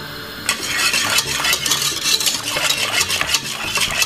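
Spoon stirring thick cornmeal porridge in a pot, with rapid scraping and clinking against the pot that starts about half a second in.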